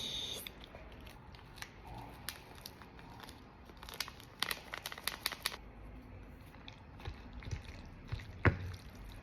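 Plastic food packaging crinkling and being torn open, with a dense run of crackles in the middle, and a sharp knock near the end.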